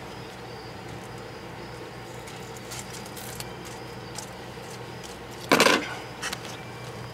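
Crickets chirping faintly in a repeating pattern over a low steady hum. About five and a half seconds in comes a short, loud burst of rustling noise, and a smaller one follows just after.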